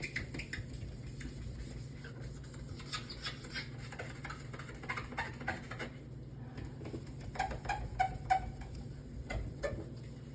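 Irregular scrubbing strokes against the plastic inside of a refrigerator: scratchy rubs with a few short squeaks about three-quarters of the way through, over a steady low hum.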